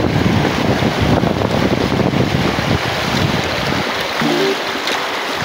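Fast river water rushing and churning over rocks, with wind rumbling on the microphone. About four seconds in the rumble drops and a few short music notes come in.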